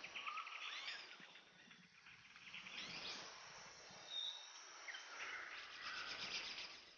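Faint forest ambience: short high chirps, a brief whistle and rapid buzzing trills from birds and insects, with the trilling strongest near the start and again over the last two seconds.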